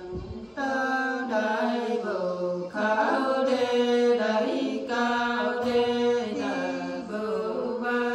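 Women's voices singing a Nùng folk song without accompaniment, in long, slow held notes that step and glide between pitches, with brief breaks between phrases. The singing starts about half a second in.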